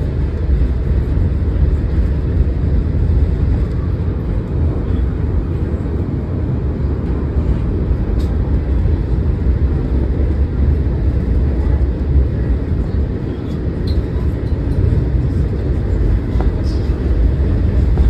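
New York subway Q train running along the track, a steady low rumble heard from aboard the car.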